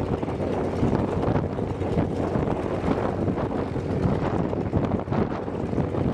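Antonov An-2's nine-cylinder radial engine running steadily at idle, with wind buffeting the microphone.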